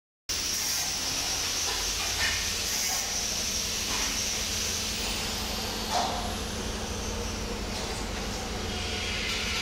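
Steady mains hum with a fan-like hiss, typical of a transformer MIG welding machine switched on and idling. A few light knocks come from handling, one near the start and one about six seconds in.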